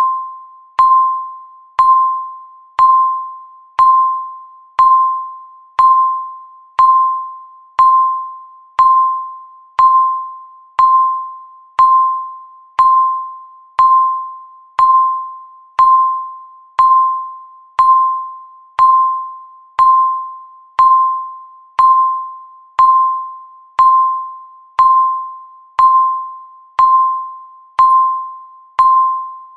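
Countdown timer beep: one short, mid-pitched electronic ping every second, each starting sharply and fading away quickly, marking off the seconds.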